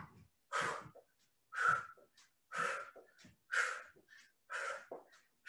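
A woman's sharp exhales, about one a second, in time with butt-kicker steps during a cardio warm-up.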